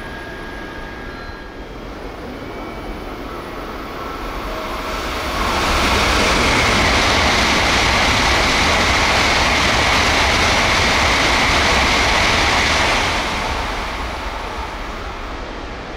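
Tokaido Shinkansen N700-series train passing straight through the station at high speed, up to 250 km/h here. The rush builds over a couple of seconds, stays loud for about seven seconds, then falls away.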